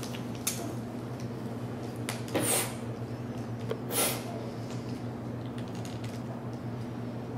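Long-reach butane utility lighter being worked to light birthday candles: a few soft clicks and two short hisses, about two and a half and four seconds in, over a steady low hum.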